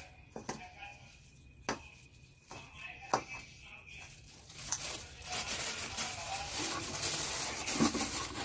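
Hand mixing a gram flour batter with sliced potatoes in a steel bowl. It starts with a few light clicks against the bowl, then from about five seconds in there is a steady wet rustling and squishing as the mixture is kneaded.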